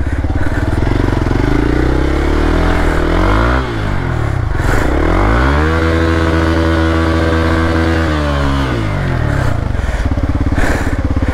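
Motorcycle engine revving hard. Its pitch climbs, dips about three and a half seconds in, climbs again and is held high for a couple of seconds, then falls back near the end, as the bike fights for grip in slippery mud.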